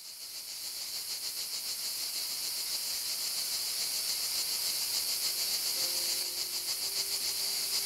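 Cicadas droning: a steady high-pitched buzz with a fast pulsing texture, fading in over the first couple of seconds. Faint held music notes come in about five seconds in.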